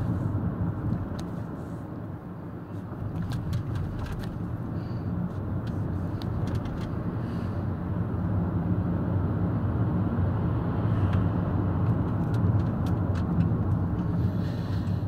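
Car engine and tyre noise heard from inside the cabin while driving at town speed: a steady low drone that eases briefly about two seconds in and grows a little louder in the second half, with a few faint ticks and rattles.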